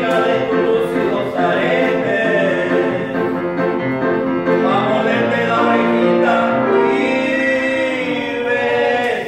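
Men singing live in a full, operatic style, accompanied by grand piano and acoustic guitar; a long note is held through the second half.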